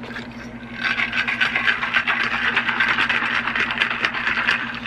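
A person drinking in big gulps from a large insulated water bottle, the liquid gurgling and being swallowed close to the microphone. It starts about a second in and stops near the end.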